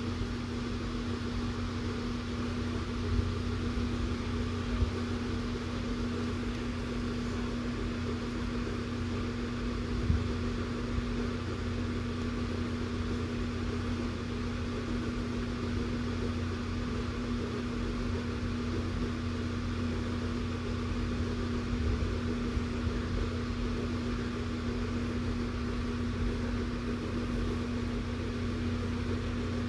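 A big electric fan running steadily, a constant whir with a steady low hum, broken by a few light knocks in the first ten seconds.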